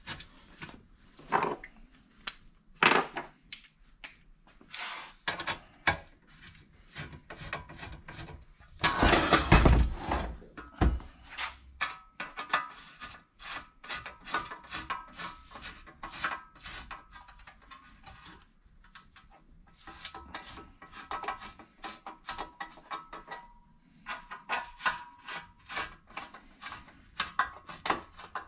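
Metal clinks and knocks as an aftermarket slip-on exhaust muffler and its metal heat shield cover are handled on a workbench, with a loud clatter about nine seconds in. After that come long runs of quick clicking from a ratcheting hand tool as the cover's bolts are turned.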